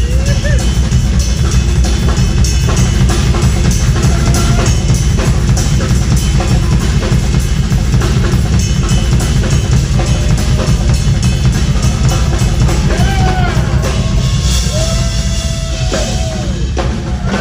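Live progressive rock band playing loud and dense, with busy drum kit and bass drum to the fore. Held lead notes slide in pitch near the end.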